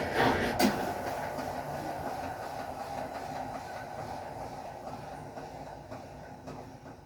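Consul Facilite 11 kg top-loading washing machine running. Its rhythmic churning ends with a sharp click about half a second in, then a steady mechanical sound that slowly fades away.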